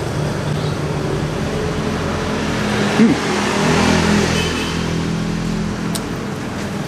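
Road traffic: a motor vehicle passes, its noise swelling and fading around the middle, over a steady low engine hum. There is a short louder sound about three seconds in.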